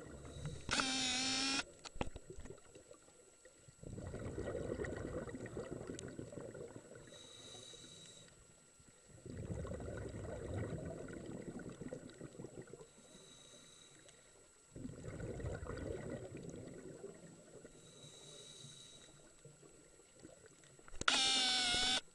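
Scuba regulator breathing underwater: three long rushes of exhaled bubbles, a few seconds apart, with quieter inhalations between them carrying a faint high whistle. A short, loud, pitched squeal with a wavering tone sounds once near the start and once just before the end.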